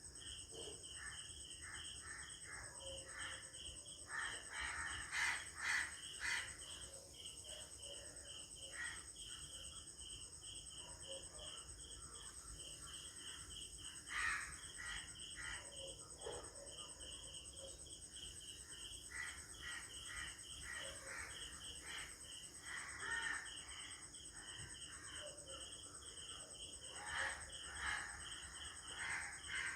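Early-morning village ambience: crickets chirping steadily in a fast pulsed rhythm over a continuous high insect buzz, with crows cawing in short bursts a few seconds in, around the middle and again near the end.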